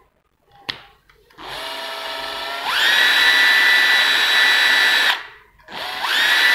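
Makita 12V cordless impact wrench running free with no load. After a sharp click, the motor starts at low speed about a second and a half in, then steps up to full speed with a high whine. It stops about five seconds in, then starts again and quickly climbs back to full speed near the end, the variable-speed trigger setting the speed.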